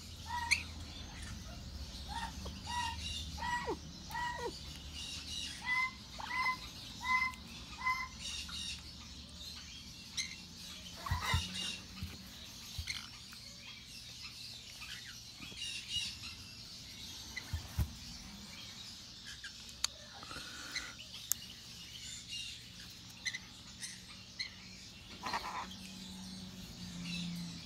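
Baby African grey parrot giving a run of short, repeated chirping calls, about ten in the first eight seconds, then only faint handling rustles and clicks.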